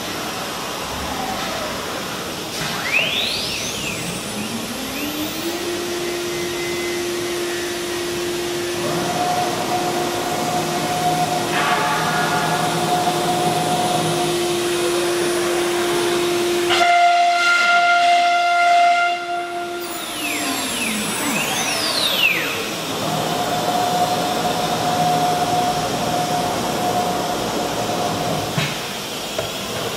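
CNC router carving a wooden board: a steady machine whine over hiss. Its pitch sweeps up about three seconds in and back down a little after twenty seconds, with steady humming tones in between.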